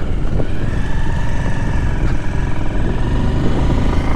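Motorcycle engine running as the bike pulls out and rides along the road, with a heavy low rumble.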